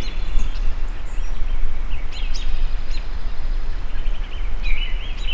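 Low wind rumble on the microphone, with small birds chirping and giving short warbled phrases throughout, a longer warble about four and a half seconds in.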